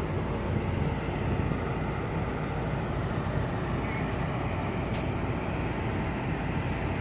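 Heavy diesel earthmoving machinery running steadily with a deep rumble, and a single sharp metallic click about five seconds in.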